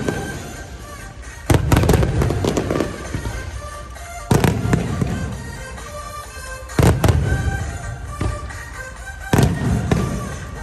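Aerial fireworks shells bursting overhead, four loud booms about two and a half seconds apart, each fading into a rumbling crackle. Music plays underneath.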